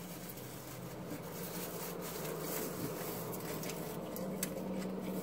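A man biting and chewing a soft taco wrapped in foil, with a few short crackles about four seconds in. A steady low hum runs underneath, inside a car.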